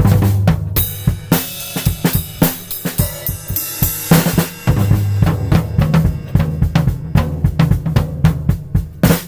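Acoustic drum kit played in a steady groove of snare, bass drum and cymbals, with cymbal crashes washing over it about a second in and again around four seconds. The hi-hat sounds distorted, which the drummer puts down to his webcam's microphone.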